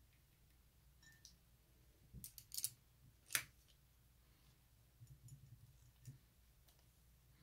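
A few short, quiet clicks and taps from small plastic paint pots and a paintbrush being handled on a worktable: a small cluster about two seconds in, one sharper click a little after three seconds, and softer taps around five to six seconds.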